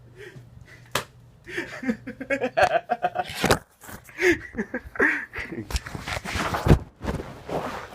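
Indistinct voices, with three sharp thumps: about a second in, midway, and near the end.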